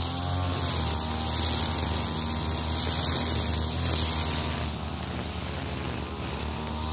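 STIHL FR3001 backpack brushcutter's two-stroke engine running at working speed, its nylon-line trimmer head whipping through tall grass. The engine note wavers slightly as the line meets the grass, with a steady hiss over it.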